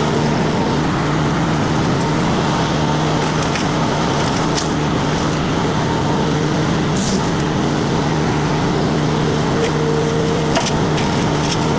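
Mini skid steer's diesel engine running steadily under load while its disc mulcher grinds through wood and brush, with sharp cracks of splintering wood every few seconds.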